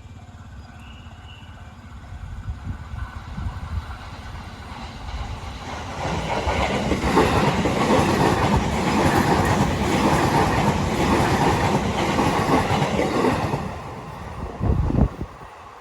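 JR Nambu Line E233-series electric train passing at speed over a level crossing. It builds from about two seconds in, is loudest through the middle and dies away near the end, with a short low thump just before it fades.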